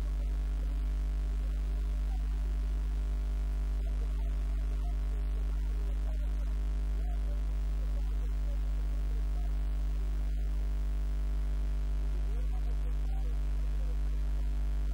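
Loud, steady electrical mains hum, a low buzzing drone with overtones that does not change, with faint wavering pitched sounds underneath.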